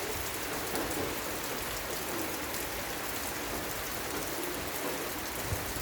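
Heavy rain pouring steadily onto surfaces, a dense even hiss with patter of drops and a low rumble underneath.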